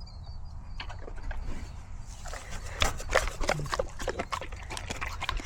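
A pig eating: rapid chomping and smacking that starts about two seconds in.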